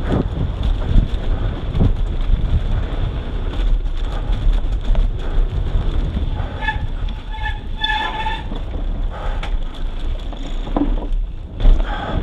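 Mountain bike descending a dirt downhill trail: tyres rolling over dirt and rock with the bike rattling and wind buffeting the microphone. A few short high tones sound around the middle, and there is a sharper knock near the end.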